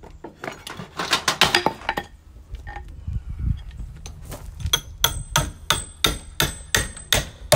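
A hammer strikes a long steel bolt to drive it through a drilled wooden gate post. A quick flurry of blows comes about a second in, then a steady run of about three ringing, metallic blows a second fills the second half.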